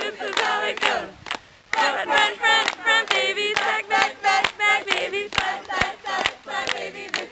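A group of people shouting a dance chant in unison, with hands clapping along and a short pause a little over a second in.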